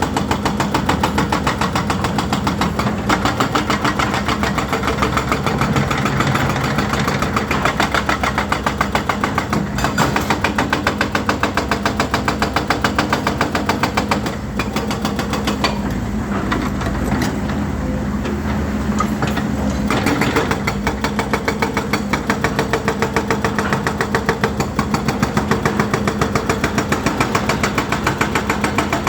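Volvo EC210D excavator's diesel engine running steadily with a fast, even pulsing. About sixteen seconds in, the sound briefly turns duller for a few seconds, then returns.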